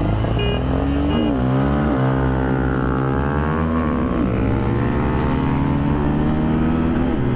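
Bajaj Pulsar N250's single-cylinder engine heard from the rider's seat, accelerating hard from a standing drag-race start after two short beeps. The engine pitch climbs, dips about two seconds in, then climbs again with upshifts about four and seven seconds in. The rider calls the launch a terrible one.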